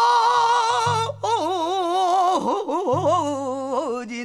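Pansori singing: a long held note with wide vibrato, then after a brief break a wavering, ornamented vocal line, over a low recurring accompaniment.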